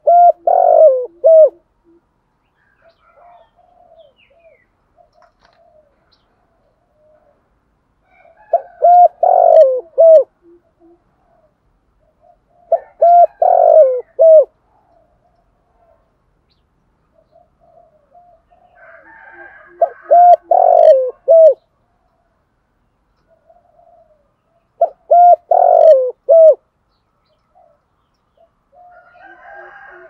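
Spotted dove cooing: a loud phrase of three or four coos, the last one short, repeated about every four to six seconds, six phrases in all, with faint softer coos in the gaps.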